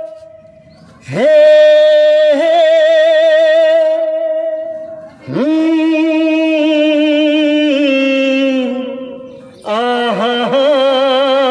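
Man singing in a Bollywood style, three long drawn-out notes with a wide, even vibrato. Each note swoops up into pitch at its start and fades away at its end.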